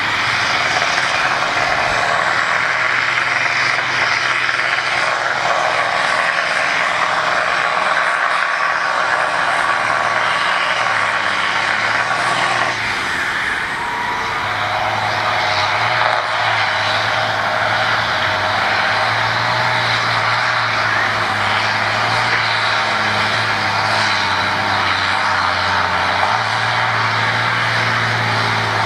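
Diesel farm tractor engines running hard at full throttle while pulling a weight-transfer sled, loud and continuous. The engine tone changes about 13 seconds in.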